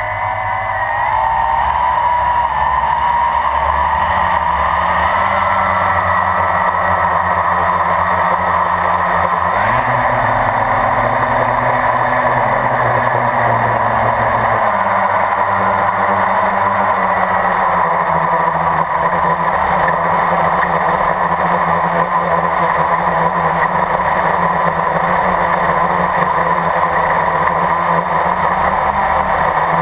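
Blade 350 QX quadcopter's four brushless motors and propellers spooling up, the whine rising in pitch over the first few seconds as it lifts off, then a steady buzzing whine in flight. Heard close up from the camera mounted on the airframe.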